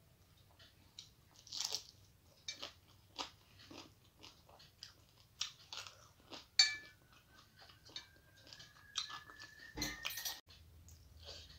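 Close mouth sounds of eating: chewing, with soft crunches and wet clicks from a mouthful of fish curry and rice. A heavier thump comes about ten seconds in.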